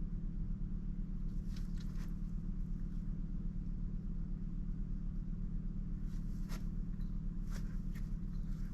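A steady low hum, with a few soft clicks and rustles from the mallard duck moving about: a cluster about a second and a half in, and more from about six seconds to near the end.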